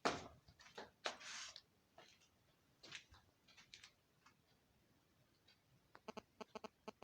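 A few sharp knocks and scuffs in the first three seconds, the loudest right at the start, like footsteps and handling noise. About six seconds in, a rapid series of short, buzzy pitched chirps begins, several a second.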